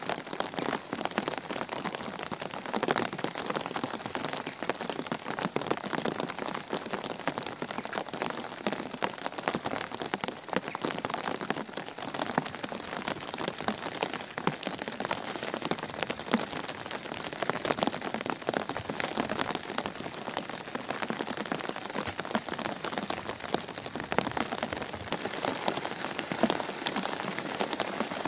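Steady rain falling, a dense, even patter of drops that does not let up.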